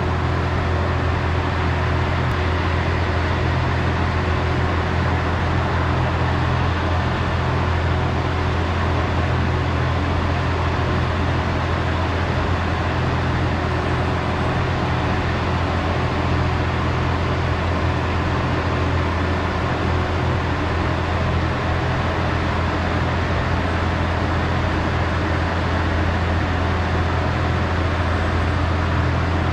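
Trolleybus running as it moves slowly, a loud, steady low drone that holds without change.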